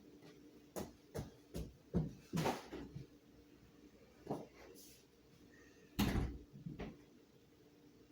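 Irregular knocks and clunks, about ten in all, the loudest a couple of seconds in and again about six seconds in, over a faint steady hum.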